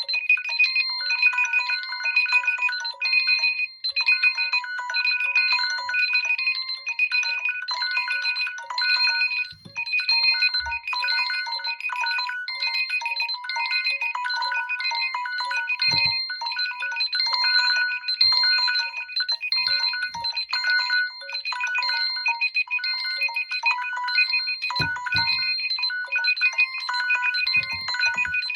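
Mobile phone ringtones and alarm tones playing on without a break: a busy run of quickly repeating electronic beeps and tunes at several pitches.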